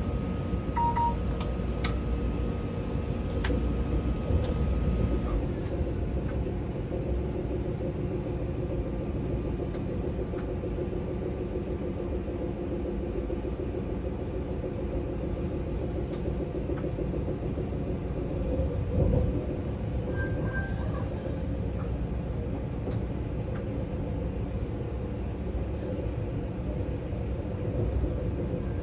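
ICE 4 high-speed train running along the track, heard inside the driver's cab: a steady low rumble with several steady tones over it and a few sharp clicks. Two short high tones sound, about a second in and about twenty seconds in.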